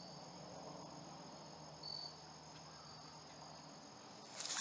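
Faint, steady, high-pitched trilling of insects, with one short chirp about two seconds in.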